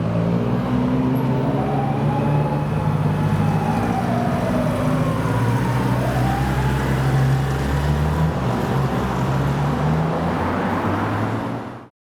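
Tokyo Fire Department ambulance siren wailing, slowly rising and falling in pitch, over a steady engine drone and passing traffic. The sound cuts off just before the end.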